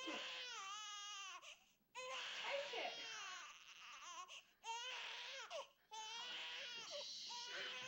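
Infant crying in long, wavering cries, four of them, each broken off by a short pause for breath.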